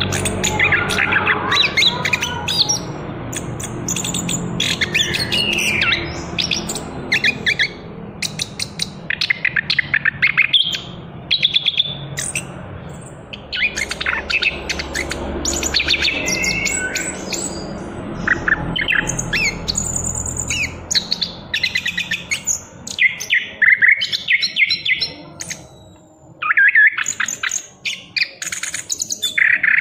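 Young orange-headed thrush (anis kembang), just moulted out of its spotted juvenile plumage, singing on and on in a varied run of chirps, whistled phrases and rapid stuttering trills.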